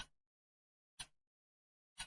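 Clock ticking once a second, each tick a short sharp click with a brief fading tail.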